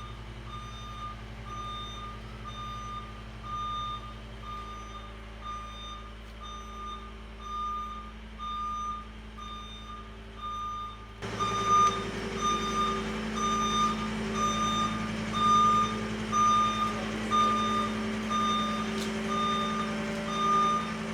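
Skid steer's backup alarm beeping evenly over its diesel engine running. About eleven seconds in the engine gets louder, as it is throttled up.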